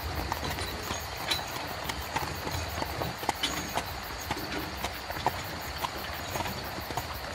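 Horse-drawn carriage in motion: hooves clip-clopping in short, uneven knocks over a steady low rumble.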